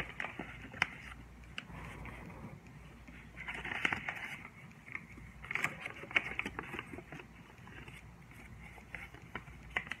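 A sheet of origami paper rustling and crinkling as it is folded by hand, with fingers pressing and sliding along the creases against a tabletop. Short sharp ticks and taps come through now and then.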